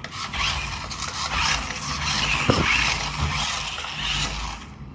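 Toy RC rock crawler truck running: its small electric motor and gears whirring and its tyres scraping, rising and falling in level as it is driven.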